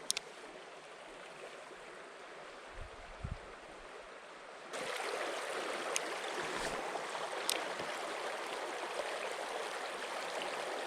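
Mountain creek water running steadily over rocks, suddenly louder a little under halfway through. A few sharp clicks sound over it.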